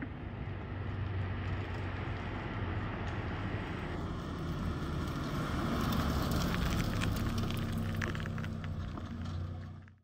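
Audi S3 (8Y) with a DBV2 4-inch downpipe driving past: the turbocharged 2.0-litre four-cylinder exhaust note builds as the car approaches and is loudest about six seconds in, with a scatter of sharp clicks. It then fades as the car moves away.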